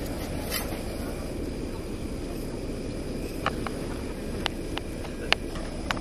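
A metal spoon scooping avocado halves and clicking lightly against an aluminium mess tin and a plastic cutting board, about five small clicks in the second half, over steady low outdoor background noise.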